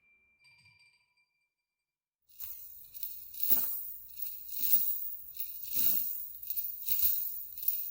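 Film sound effects: a faint high ring fades into near silence. After about two seconds a steady hiss and low hum begin, with slow, heavy footsteps landing about once a second.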